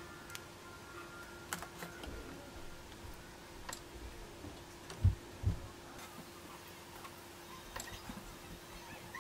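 Light ticks and clicks of metal tweezers and tiny surface-mount parts against a cutting mat and an LED strip while desoldering, with two dull thumps about five seconds in, half a second apart. A faint steady hum runs underneath.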